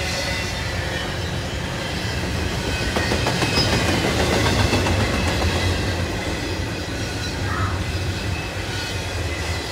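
Double-stack container well cars of a freight train rolling past, their steel wheels rumbling and clacking over the rail joints, a little louder around the middle.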